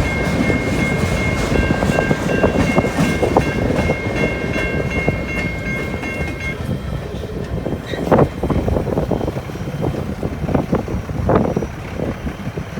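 Freight train rolling past, wheels clattering on the rails, with a high steady squeal over it that stops about halfway through. After that the train noise goes on under gusts of wind buffeting the microphone.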